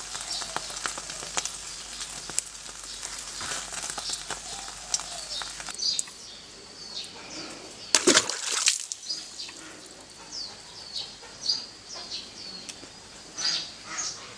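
Food sizzling and crackling in a pan for about six seconds, then it cuts to birds chirping in short calls, with a brief loud whoosh about eight seconds in.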